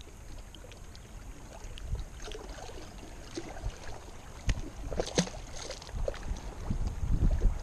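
Wind buffeting the microphone in gusts, with a few light knocks and small splashes about four and a half to five seconds in as a bluegill is dropped back into the lake.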